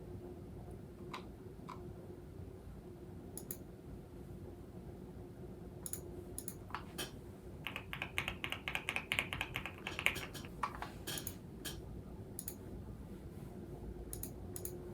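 Keystrokes on a Photon mechanical keyboard with factory-lubed Gateron EF Curry linear switches and PBT keycaps: scattered single key presses, then a quick run of typing from about eight to ten and a half seconds in.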